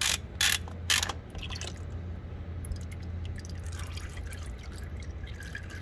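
A ratchet wrench clicks three times in the first second as the oil filter is unscrewed. Then old engine oil trickles and drips from the open filter mount into a plastic drain pan.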